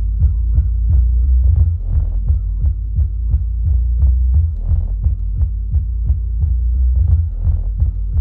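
DD Audio Redline 12-inch subwoofer in a folded bass horn, playing bass-heavy music inside the car's cabin: deep, loud bass with a steady beat about three times a second.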